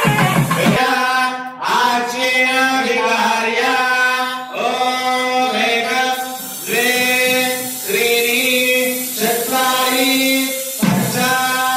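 A priest chanting Vedic mantras into a microphone: a steady sing-song recitation in phrases of about a second each, held around one pitch, with short pauses between phrases.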